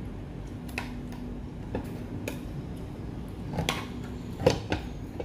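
Scattered sharp clicks and taps from eating steamed mud crab: a spoon tapping against a plate and crab shell being pulled apart by hand. The loudest click comes about four and a half seconds in.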